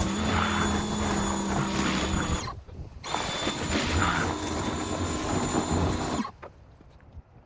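Pressure washer running and spraying. It stops briefly about two and a half seconds in, starts again, then cuts off suddenly about six seconds in.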